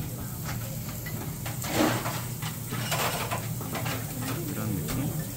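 Restaurant dining-room ambience: a steady low hum, with scattered clinks and knocks of tableware and faint chatter from other diners; one louder scrape or rustle about two seconds in.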